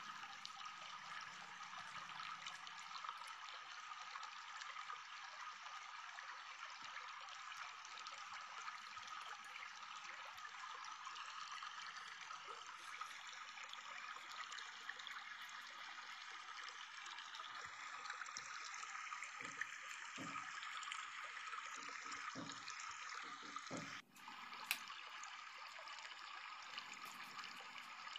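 A faint, steady hiss like running or trickling water, with a few soft low knocks in the last third and a brief dropout about 24 seconds in.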